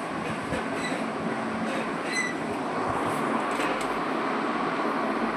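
Hot air rework gun blowing a steady rush of air, as used to heat and desolder a phone's charging connector.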